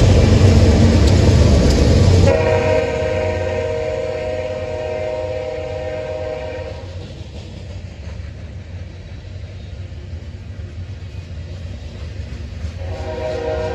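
Union Pacific diesel locomotive rumbling past, then a locomotive air horn sounds a long chord of several notes for about four seconds. A second horn blast starts near the end, over the steady rolling of covered hopper cars on the rails.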